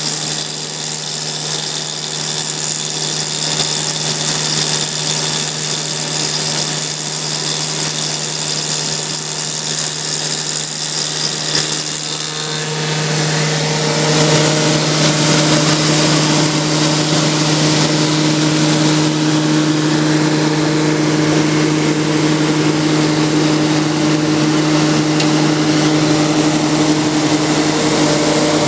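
Woodworking spindle moulder running steadily, its motor and spinning cutter block giving a constant machine hum with hiss. About halfway through the sound shifts: the high hiss drops and new steady tones come in.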